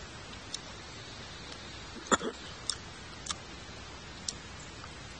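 Someone eating and drinking from a stainless steel cup: a few light clicks of chopsticks against the metal, and a louder sip about two seconds in, over a steady hiss.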